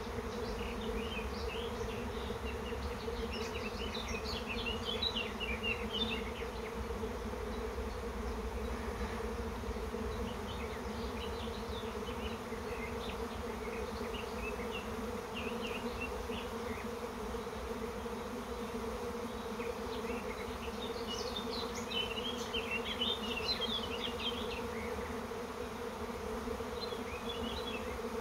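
Honeybee swarm in flight: thousands of bees on the wing, leaving the hive with the old queen, make a steady, dense buzzing hum. Short high chirps come and go, early on and again around twenty seconds in.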